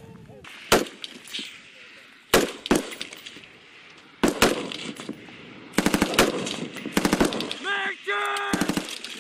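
Live small-arms fire: a few single rifle shots, then short rapid bursts of machine-gun fire from about six seconds in. A voice shouts briefly near the end.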